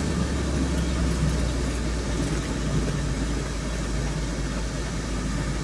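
Engine drone and road noise of a vehicle driving along a highway, heard from inside the vehicle as a steady low hum.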